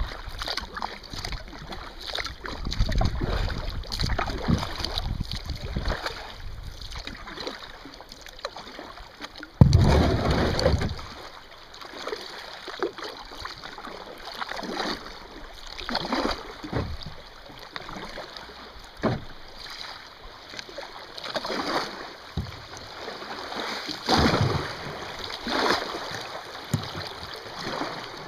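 Kayak paddle strokes dipping and splashing in river water, a surge of water noise every second or two, with wind rumbling on the microphone. A louder rush of noise lasts about a second, some ten seconds in.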